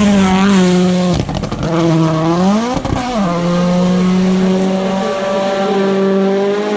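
Rally car engine at speed on a gravel stage: the note dips and climbs through gearshifts about a second in and again near three seconds, with a burst of crackles during the first shift, then holds a steady high note.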